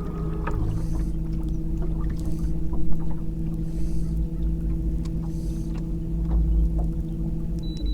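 Boat motor running at a steady pitch under low rumble, cutting off just before the end.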